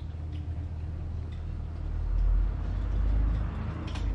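Maine Coon kitten purring close to the microphone: a steady low rumble that swells louder in the middle, with a faint click near the end.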